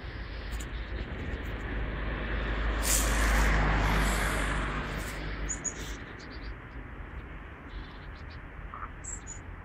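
A vehicle passing by: a low rumble and rushing noise that swells to a peak about three and a half seconds in and fades away by about six seconds. A couple of short high chirps come near the end.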